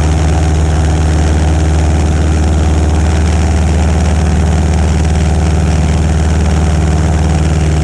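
Cessna 150's four-cylinder Continental O-200 engine and propeller running steadily at a constant power setting, heard from a camera mounted outside the cabin under the wing with a steady rush of air. The engine is holding the plane in nose-high slow flight just above the stall, at zero indicated airspeed.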